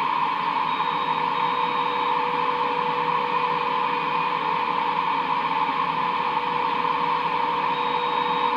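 CB radio receiver putting out steady atmospheric static, the 'weird atmosphere noise' of a band full of skip, with a faint steady whistle from an AM carrier underneath and a few brief higher whistles.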